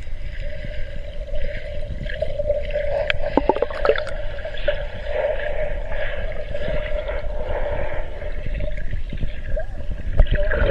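Muffled underwater sound from a submerged camera: a steady low rumble of moving water with a continuous mid-pitched hum. Short bubbling and sloshing sounds come through, about three to four seconds in and again near the end as swimmers move right past it.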